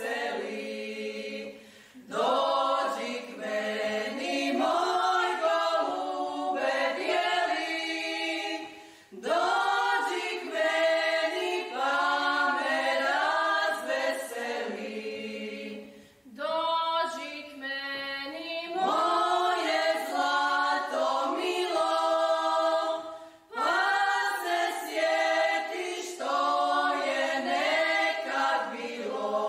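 A small group of voices singing a cappella in long phrases, with a short pause between phrases about every seven seconds.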